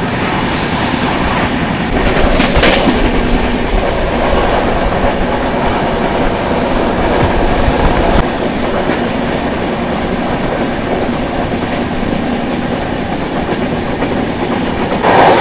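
Shramjeevi Express passenger train running at speed, heard from aboard: a steady rumble and rattle that grows louder for several seconds, then a run of wheel clicks over the rail joints.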